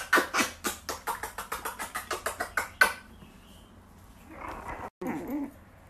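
Chihuahua puppies giving a rapid string of short, sharp yips, about six a second, for about three seconds. A softer grumbling sound follows about a second and a half later.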